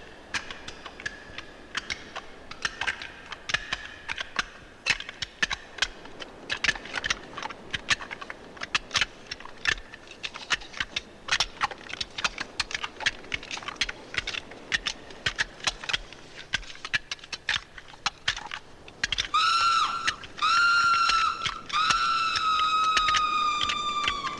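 Giant crab sound effect on a 1970s horror record: a long run of irregular, rapid clicking and clacking, like huge claws snapping. From about two-thirds of the way in, sirens wail in several long blasts.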